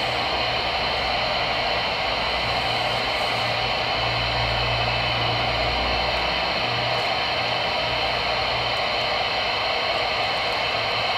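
Steady static hiss from a Voyage CB radio's speaker, open on 27.225 MHz AM with no one transmitting. A low hum swells under the hiss for several seconds in the middle.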